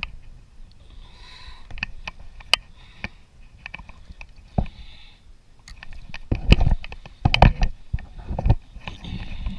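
Close handling noise: scattered sharp clicks and knocks, with a burst of louder thumps and rustles about six seconds in.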